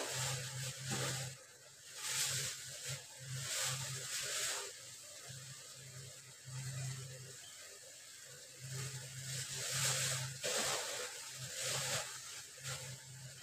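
Sauce with baby corn and pork boiling hard in a wok over high heat, bubbling and hissing in uneven swells, with a low hum coming and going underneath.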